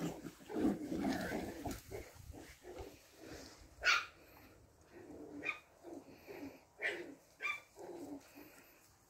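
Poodle puppies in rough play: a dense run of low noises for the first couple of seconds, then a string of short, sharp yips, the loudest about four seconds in.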